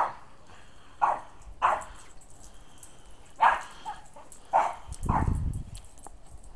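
A dog barking, about five sharp barks at uneven intervals, with a low rumbling noise about five seconds in.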